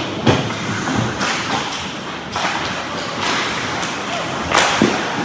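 Ice hockey play in a rink: several sudden thuds and knocks, a few seconds apart, over a steady noisy rink haze.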